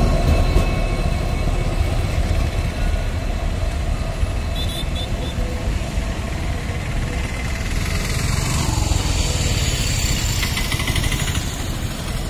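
Diesel locomotive engine, the two-stroke EMD engine of a WDP4D banker, running under load as it pushes a departing passenger train and moves away, a steady low rumble.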